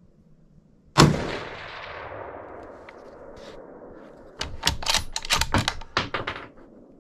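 A single .308 rifle shot about a second in, its report rolling away and fading over the next few seconds. Then comes a quick run of sharp metallic clacks as the rifle is handled at the window.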